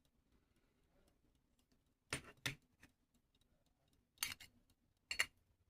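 A few sharp, light metallic clicks and taps as the pocket watch's case back is handled and pressed into place, in pairs about two and four seconds in and once more near the end.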